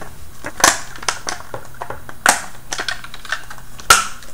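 Red plastic casing of a Parallax Scribbler 2 robot being pressed back together by hand: a run of sharp plastic clicks and knocks, with three louder snaps about a second and a half apart, as the shell parts snap into place.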